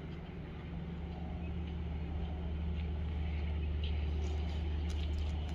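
Low, steady engine rumble of road traffic, slowly growing louder and easing off near the end, as of a heavy vehicle going by on the road.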